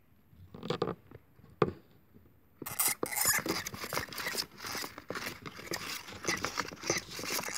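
Two dwarf hamsters scuffling in a fight inside a cardboard box, their claws scrabbling and scraping on the cardboard. A couple of sharp knocks come first, and the dense scrabbling starts about two and a half seconds in.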